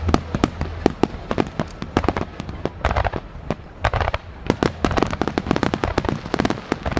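Aerial firework shells bursting in quick succession: a dense run of sharp bangs and pops, several a second.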